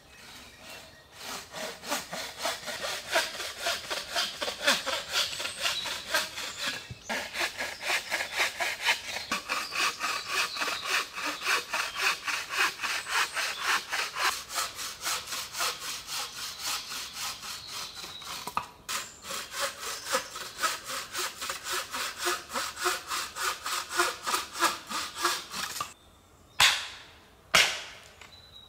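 Hand saw cutting through wood in quick, even strokes, about three a second, with two short pauses. Near the end the sawing stops and two sharp knocks follow.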